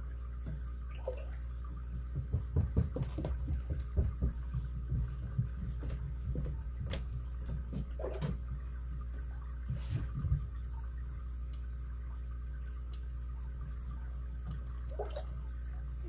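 Lock pick and tensioner working in the keyway of an all-brass Yale 7-pin padlock: light scratching and clicking of the pick on the pins, busiest in the first half and sparser later, over a steady low hum.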